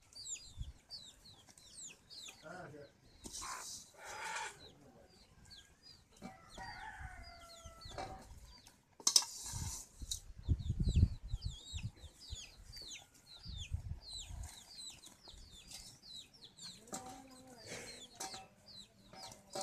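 Chickens calling, with short high chirps repeating all through and a few lower clucking calls. There are brief scraping bursts and low thumps from ash and fish being handled.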